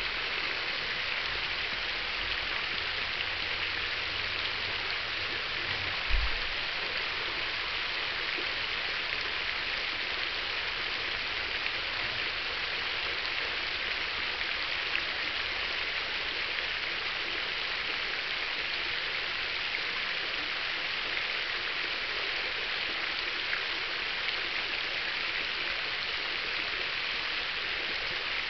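Garden fountain running: the ring of arching jets and the central cascade nozzle splash steadily into the basin. A single low thump comes about six seconds in.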